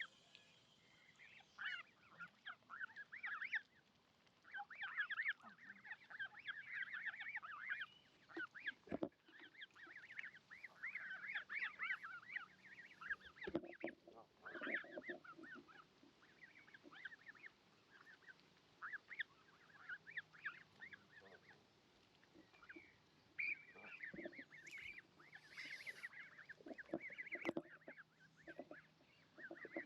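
Geese honking and calling faintly in irregular bunches of short calls.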